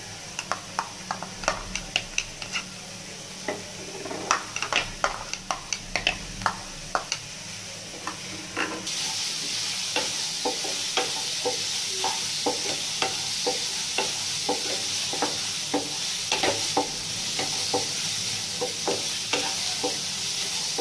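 Wooden spatula stirring and scraping chopped onion and capsicum in a hot nonstick pan, with rapid clicks against the pan and the vegetables sizzling as they are lightly roasted to soften. About nine seconds in, the sizzle turns louder and steadier.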